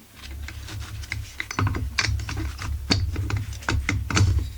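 Light, irregular clicks and knocks of chainsaw engine parts being handled, the cylinder knocking against the crankcase and bench as it is fitted, several clicks a second over dull handling bumps.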